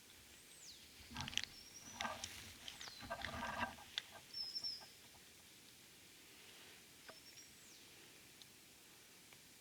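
Wild turkey clucks and yelps in a quick, choppy run from about a second in until five seconds in. Songbirds give thin, high, sliding whistles near the start and again near the end.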